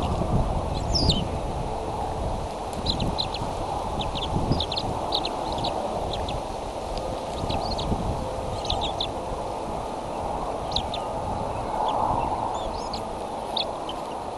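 Short, high, thin bird chirps come one after another throughout, over a steady rushing wind noise on the nest-cam microphone.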